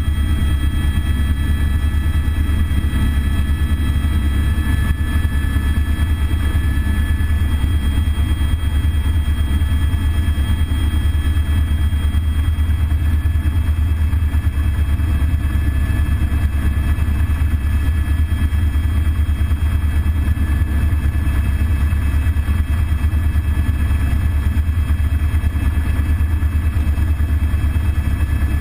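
Cockpit sound of an Airbus (Eurocopter) AS350 B3 single-turbine helicopter in steady flight: a loud, even low rotor drone with a steady high whine over it.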